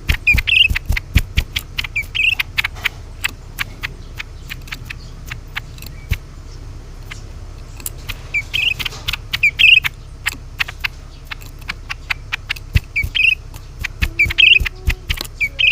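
Cucak ranting bird calling: runs of sharp clicking notes, with short high chirps in small clusters every few seconds.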